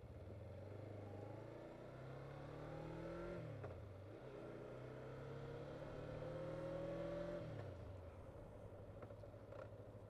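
Motorcycle engine accelerating through the gears: its pitch climbs, drops briefly about three and a half seconds in as it shifts up, climbs again, then falls away about seven and a half seconds in and settles, heard from a helmet camera with wind noise.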